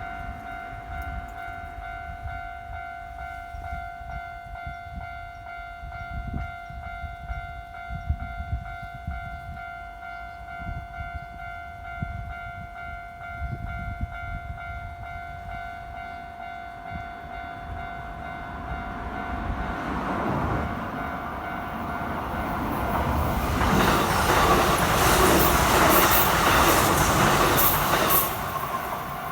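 Japanese level crossing warning bell ringing steadily while a Kintetsu Osaka Line electric train approaches. The train passes loudly through the second half, with rumbling wheels on the rails, and its noise drops off just before the end.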